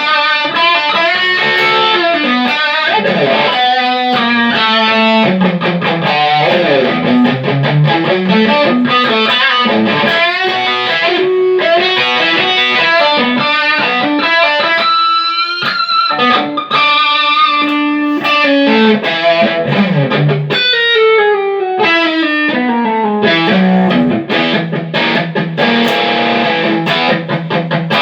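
Electric guitar played through a Line 6 HD500X multi-effects pedalboard: melodic lead lines and runs with distortion, a sound test confirming the unit now passes signal after repair.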